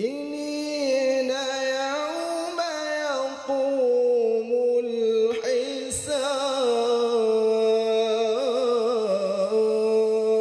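A man singing solo into a handheld microphone, holding long notes and bending them in wavering runs.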